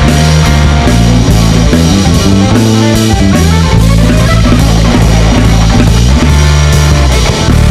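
Live instrumental rock-jazz trio playing: electric bass, drum kit and electric guitar, with a steady beat.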